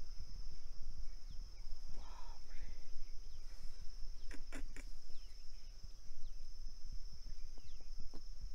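Wetland ambience: a steady high drone of insects with scattered faint bird chirps over a low rumble, and a few sharp clicks about four and a half seconds in.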